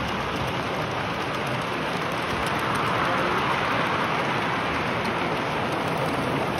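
Steady, indistinct chatter of a large crowd of visitors, a dense hubbub with no single voice standing out.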